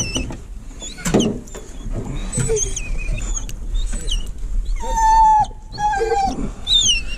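Hunting hounds whining and yelping with excitement, several high whines overlapping, with one longer held whine about five seconds in.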